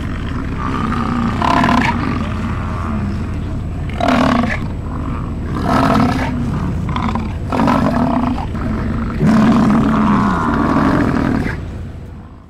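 American bison bellowing: a run of long, low pitched calls that swell and ebb about six times over a steady low rumble, fading out near the end.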